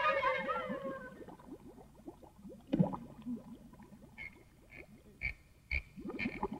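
Cartoon sound effects of the teacher swinging the big vault-like school door shut and locking it. Underwater bubbling with a knock just before 3 s, then a run of short squeaks about every half second, with two sharp clunks among them.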